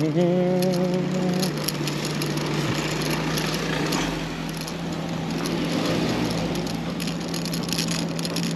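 Pedal-assist electric moped-style e-bike climbing a steep hill: a steady low electric-motor hum under load, with wind and road rattle crackling on the microphone. A short rising voice-like hum is heard right at the start.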